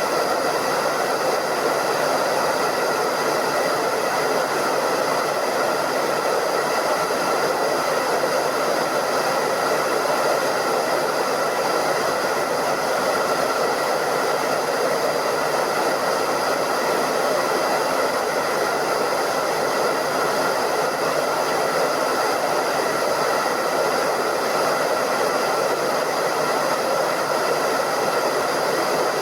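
Hair dryer running steadily: an even rush of blown air with a steady motor whine over it.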